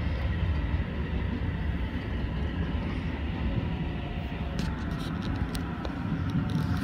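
Shin-Keisei electric commuter train running, heard from inside the front car: a steady low rumble of wheels and motors, with a few faint ticks about five seconds in.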